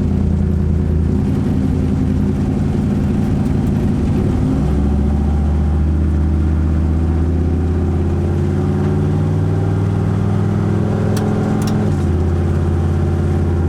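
Chevrolet Camaro's engine running steadily while driving, heard from inside the cabin; its pitch drops about four and a half seconds in and changes again near the end.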